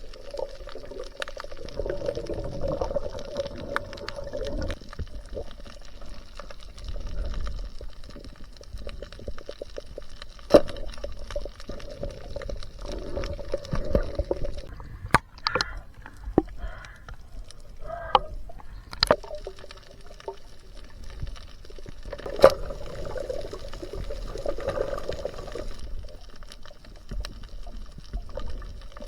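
Water sloshing and bubbling, broken by scattered sharp clicks and knocks, with a short gurgling stretch about halfway through.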